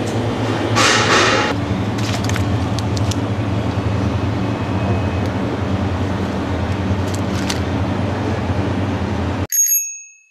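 Steady low hum of a shop's refrigerated display cases and ventilation, with a short burst of noise about a second in. Near the end the hum cuts off abruptly and a short bright chime rings and fades.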